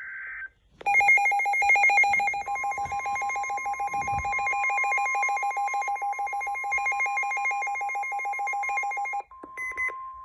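NOAA weather radio receiver sounding a severe-weather alert. A short high data buzz at the start is followed by rapid pulsing alarm beeps from about a second in. The steady warning alarm tone joins about two and a half seconds in and carries on after the beeping stops near the end.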